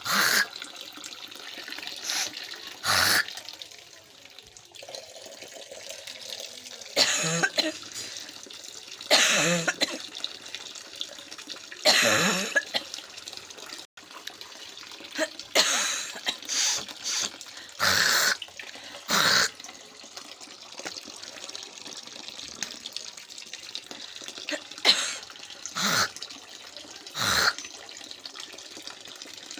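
A person coughing over and over: about a dozen short, sharp coughs, some singly and some in quick pairs, with pauses of a second to several seconds between them and a low steady hiss underneath.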